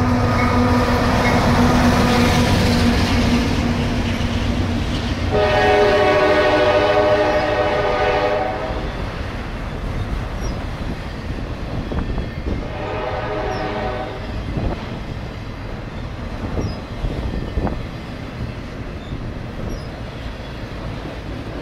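CSX freight train passing close by: the locomotive's air horn sounds, trailing off early, then a long blast about five seconds in and a shorter one around thirteen seconds. Between and after the blasts the steady rumble and clatter of the autorack cars' wheels on the rails carries on, with a few clanks.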